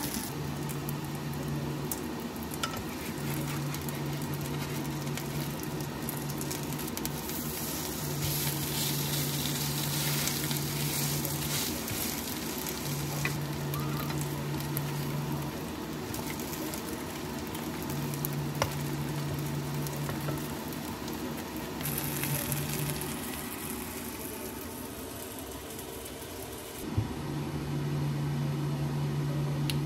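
Food frying in hot oil in a pan, a steady sizzle, with a low hum that switches on and off every couple of seconds and a single sharp click near the end.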